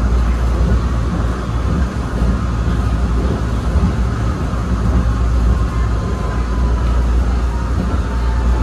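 1993 ABB N5 high-speed-line railcar running along the track: a steady, loud rumble, with a faint whine that slides down in pitch over the last few seconds.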